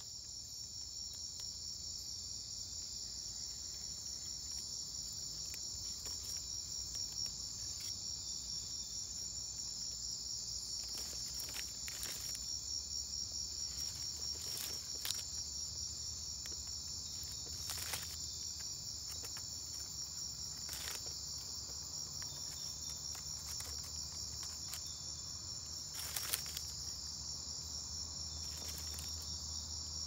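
Steady, high-pitched chorus of night insects in the Amazon rainforest, a continuous shrill trill with no let-up, broken by a few short sharp ticks, the loudest about halfway through and another near the end.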